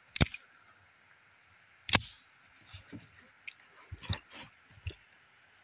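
Sharp metallic clacks of a Rock Island Armory M1911A1 9mm pistol being handled: two loud clacks about two seconds apart, then a few lighter clicks.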